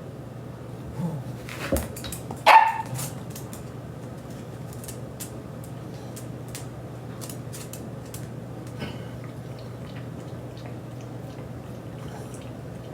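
A dog gives a few short barks in the first three seconds, the last one the loudest, followed by scattered light clicks over a steady low hum.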